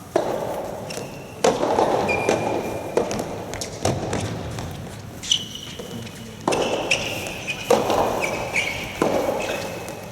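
A soft tennis rally: the rubber ball struck by rackets about every one and a half to two and a half seconds, each hit echoing in a large hall, with short high squeaks of shoes on the court between the hits.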